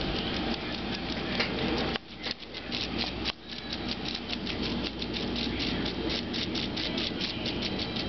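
Cicada buzzing in a rapid rattling pulse, about six pulses a second, which sets in about two seconds in.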